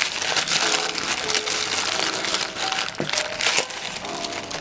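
Plastic courier mailer and bubble-lined inner pouch crinkling and rustling as they are handled and pulled apart, easing off near the end. Faint background music beneath.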